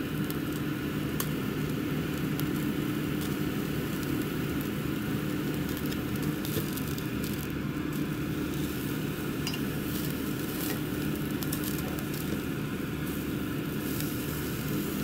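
Thin slices of A5 wagyu sizzling on the wire mesh of a gas yakiniku grill, with a few light clicks of metal tongs against the mesh as the slices are turned. A steady low hum runs underneath.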